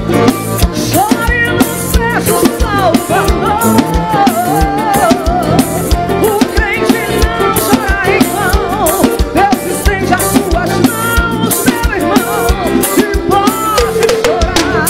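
Live band music with accordion, drum kit, electric guitar and keyboard playing an upbeat passage over a steady, driving drum beat, with no lyrics sung.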